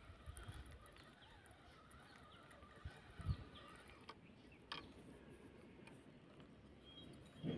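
Faint outdoor ambience with scattered distant bird calls and two soft low thumps about three seconds in.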